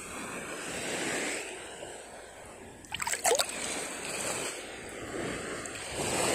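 Shallow water sloshing and lapping, swelling and fading a few times, with a short run of sharp clicks about three seconds in.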